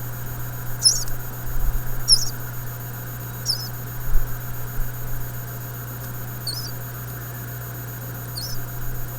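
Just-hatched nestling birds giving short, high, thin begging peeps, about five of them spaced a second or two apart.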